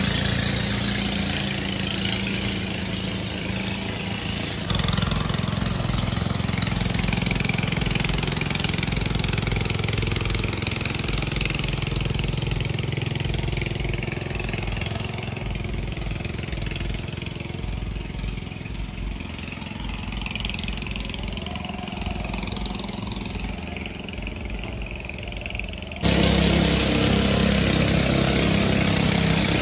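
A motor engine running steadily. The sound changes abruptly about five seconds in and again near the end, where it jumps louder.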